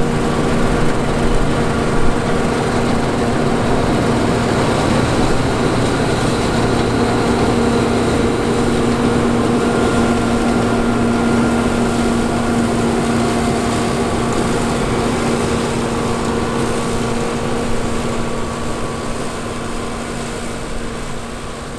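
John Deere 9450 combine harvesting wheat: its 6.8-litre PowerTech diesel runs steadily under load, with the hum and rattle of the grain table and threshing machinery. The sound fades down over the last few seconds.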